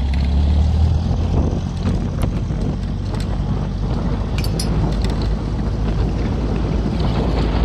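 Beach buggy running while driving: a steady low engine hum for the first second or so, then a rough rumble with wind buffeting the microphone and a few sharp knocks.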